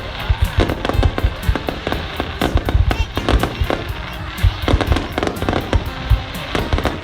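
Fireworks going off in a dense, irregular run of sharp bangs and booms, several a second, with music playing underneath.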